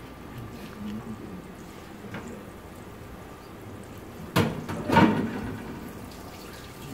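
Pork chops browning in a frying pan over a gas burner, with a low steady sizzle. About four and a half and five seconds in come two brief, loud rushes of noise, the second the louder.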